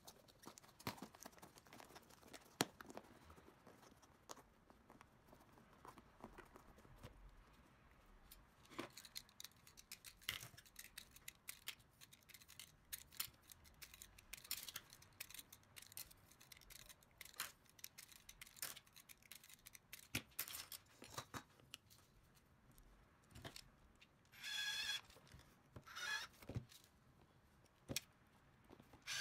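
Soft clicks, taps and rustles of plastic RC wheel parts, aluminium beadlock rings and small metal screws being handled, then near the end two short whirs of a small electric screwdriver driving beadlock ring screws into the wheel.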